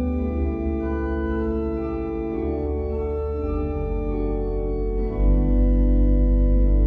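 Church organ playing a slow prelude of held chords that change every second or so. About five seconds in, a deep bass pedal note comes in and the sound grows louder.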